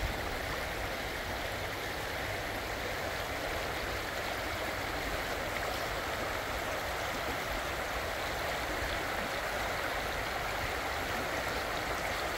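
Floodwater rushing and churning steadily as it pours across and over the edge of a submerged road.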